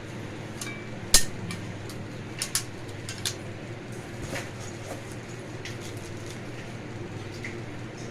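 A few sharp clicks and knocks of hard objects being handled and set down, the loudest about a second in, over a steady low hum.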